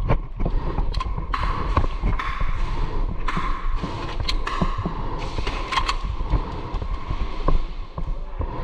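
Heavy breathing through a gas mask: a hissy rush about a second long, repeated several times, fainter in the last couple of seconds. Scattered sharp clicks and thuds of gear and footsteps come in between.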